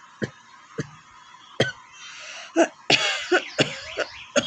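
A person coughing in a string of short, sharp coughs, about nine in all, coming faster in the second half. It is an ordinary dry cough, not a phlegmy cough from a cold.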